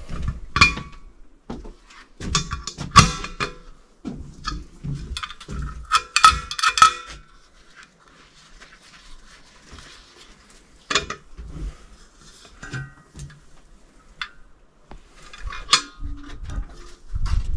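Stainless-steel autoclave lid and fittings being handled: scattered metallic clinks and clanks, some ringing briefly, with a cluster of clinks about six to seven seconds in.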